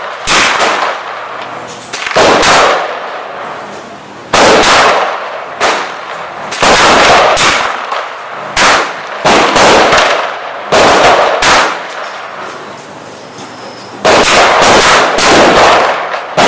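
Gunshots from a Hi-Point 9 mm semi-automatic carbine, fired one at a time at irregular intervals, about a dozen in all, some in quick pairs. Each shot is loud and sharp and rings on in echo.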